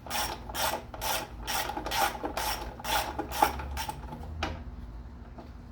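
Socket ratchet on an extension clicking in quick strokes, about two a second, as it backs out a timing-cover bolt on a Nissan VG33E V6. The strokes stop about halfway through, with one last click a second later.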